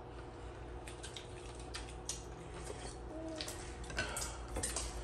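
Eating sounds at a meal table: scattered small clicks and taps of a spoon and hands against glass bowls and plates, with chewing, over a steady low hum.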